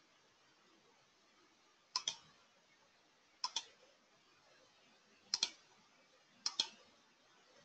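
Computer mouse double-clicking four times, each a quick pair of sharp clicks, spaced unevenly over a few seconds.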